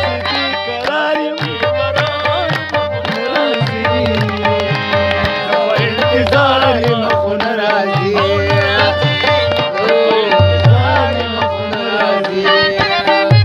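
Pashto folk music played live: harmonium chords and melody over a steady tabla rhythm, with a plucked rubab line, in an instrumental passage between sung verses.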